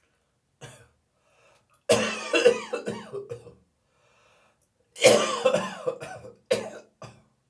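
A person coughing in a dry morning cough: a short cough under a second in, then two harsh fits of several coughs each, at about two seconds and at about five seconds, and a brief one near the end.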